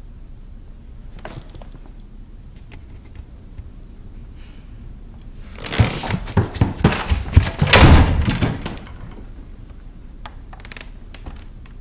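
A burst of loud, rapid knocking and banging from inside an old chest, lasting about three seconds from about halfway through, with a few faint clicks before and after.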